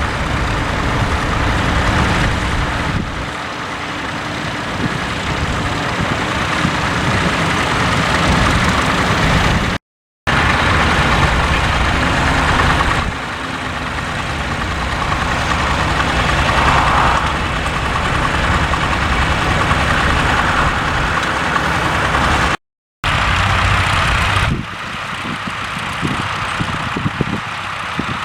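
Vintage tractor engines running steadily, in three stretches broken by two brief silent cuts, about ten seconds in and near the twenty-three-second mark.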